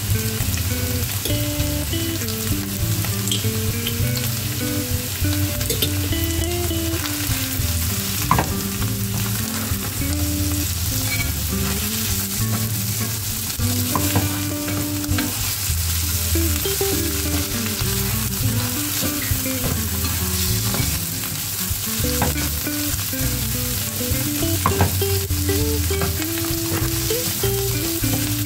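Split peas, minced meat and onion frying in oil with tomato paste in a nonstick pan, sizzling steadily while being stirred with a spatula, with a few sharp clicks of the spatula against the pan.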